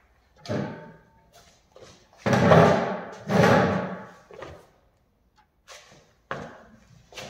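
Footsteps, thumps and scrapes as a person walks up and sits down on a metal-legged stool on a concrete floor, the two loudest knocks coming a second apart near the middle, then smaller shuffling knocks as he shifts on the seat.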